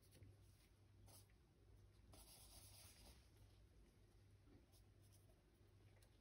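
Near silence with the faint scratch of an oil-paint brush on canvas as paint is dabbed on, a longer stroke about two seconds in, over a low steady hum.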